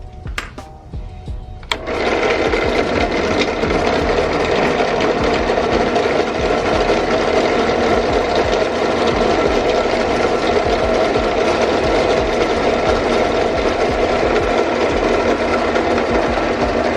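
A few handling clicks, then about two seconds in an electric drill starts and runs steadily, boring a hole in the Bose S1 Pro speaker's enclosure for a power connector.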